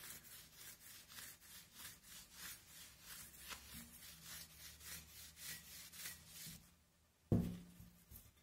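A cloth damp with mineral spirits and bitumen being rubbed over a paper-decoupaged glass jug in quick strokes, about three a second, to antique the finish. A brief louder sound comes about seven seconds in.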